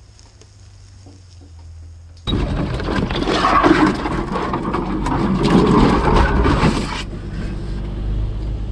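Jeep Gladiator's 3.0 L EcoDiesel V6 crawling a rough, tight wooded trail: a low engine drone, broken about two seconds in by a loud clatter of rattles, knocks and scraping that lasts about five seconds and stops suddenly, leaving the steady low drone.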